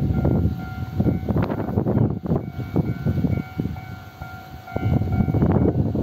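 Strong wind buffeting the microphone in irregular gusts, easing briefly about two-thirds of the way through. Faint steady high tones sound underneath.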